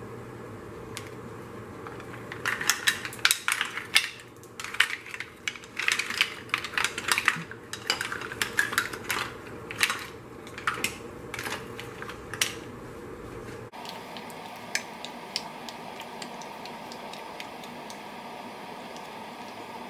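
Green-lipped mussel shells clattering against each other and the pot as they are added to a large pot of seafood-boil broth and pushed in with a plastic slotted spoon: many sharp clicks and knocks for about ten seconds. Then it drops to a faint steady hiss with a few small ticks.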